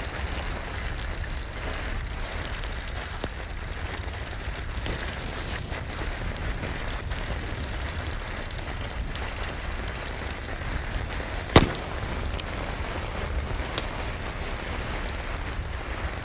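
Steady rain falling, with a wood fire crackling in a fireplace; one loud sharp pop about two-thirds of the way through, then two smaller snaps soon after.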